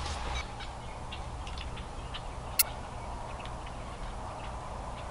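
Faint, scattered small ticks and clicks over a low steady rumble, with one sharp, louder click about two and a half seconds in.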